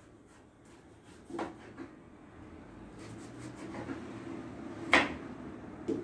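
Knife peeling pumpkin skin on a cutting board: light scraping and handling, a click about a second and a half in, and one sharp knock on the board about five seconds in.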